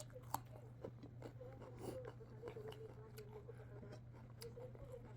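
Close-up chewing and biting of food, with wet mouth clicks and small crunches. A faint wavering voice hums along in the background over a steady low hum.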